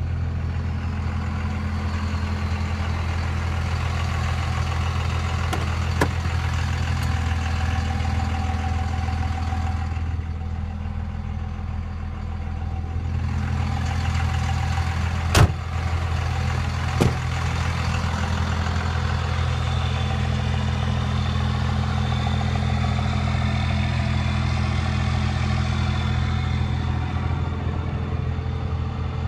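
1999 Dodge Ram 2500's 5.9-litre Cummins turbo-diesel inline-six idling steadily. A few sharp clicks cut through, the loudest about fifteen seconds in.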